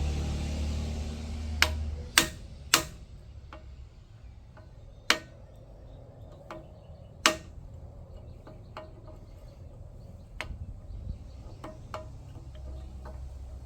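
Hammer blows on steel, a bolt being driven into a mini excavator's pivot joint: a dozen or so sharp, irregular strikes, the loudest about two, five and seven seconds in.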